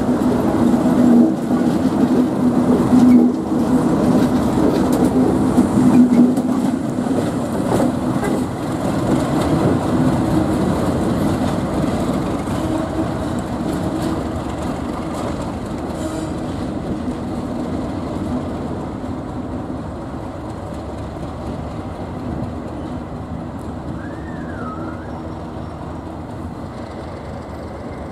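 A Class 37 diesel locomotive's English Electric V12 engine running as a coupled pair of Class 37s moves slowly off at low speed. The engine note is strong at first, then fades steadily as the locomotives draw away, with a few wheel clicks over the rail joints early on.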